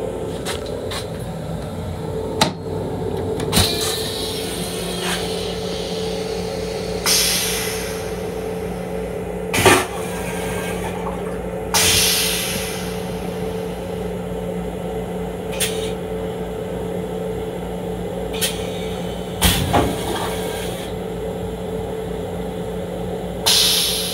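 M7 railcar toilet flushing, heard as several short rushes of hiss with a thump near the middle. Under it is the steady hum of the railcar, with scattered clicks and rattles.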